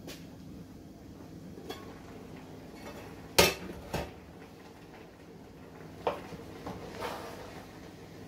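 Aluminium stockpot lid clanking against the pot as it is lifted off: two sharp metal knocks a little over three seconds in, about half a second apart, with lighter knocks before and after over a steady low hum.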